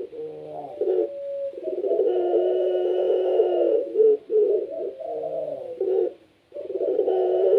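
Puter pelung, a long-cooing strain of Barbary dove, cooing in long drawn-out coos with short breaks between them. One long coo starts about one and a half seconds in, and another starts near the end after a brief dropout.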